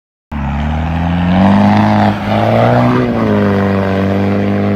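Land Rover Discovery 4x4's engine revved hard and held near the top of its revs. The pitch climbs, dips briefly about two seconds in, climbs again and then holds steady, while the wheels spin and throw up dust.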